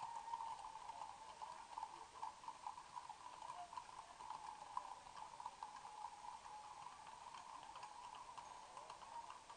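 Faint, irregular clip-clop of several horses' hooves on a paved street, heard over a steady faint hum.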